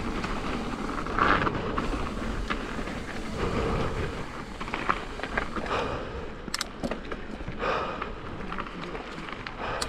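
Mountain bike rolling over a dirt trail: steady rumble and crunch of the tyres with rattling from the bike. A few sharp clicks come about six and a half to seven seconds in and again near the end.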